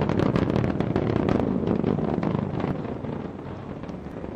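Roar of the LVM3 rocket's two S200 solid-fuel boosters in flight, a dense low rumble full of sharp crackling that eases off over the last second or so.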